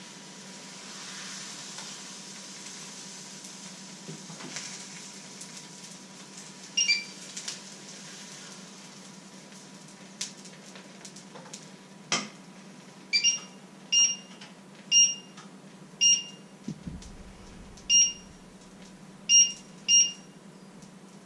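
A series of short, high electronic beeps, about ten of them at irregular intervals of roughly a second, some in quick pairs, starting about seven seconds in. Under them, a faint sizzle from the frying pan where pancake batter is cooking, and a single knock about twelve seconds in.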